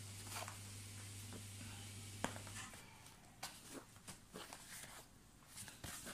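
Faint handling of a cardboard product box: light taps, scrapes and rustles as it is turned over and stood on end, with one sharper click a little after two seconds. A low steady hum stops about two and a half seconds in.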